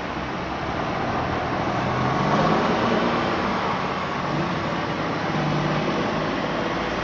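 Road traffic through an intersection: cars passing and a semi-truck's engine pulling through close by, its note rising as it gets louder about two seconds in, then settling into a steadier drone.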